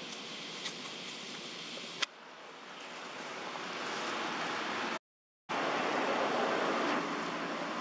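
Steady rushing outdoor background noise with no distinct source, broken by a sharp click about two seconds in and a half-second dropout to silence about five seconds in.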